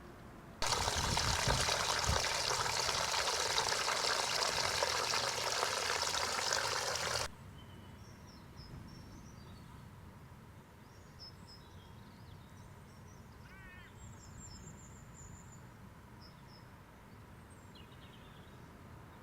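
A loud rush of water starts suddenly about half a second in and cuts off abruptly about seven seconds in. After that, birds chirp briefly here and there over a quiet outdoor background.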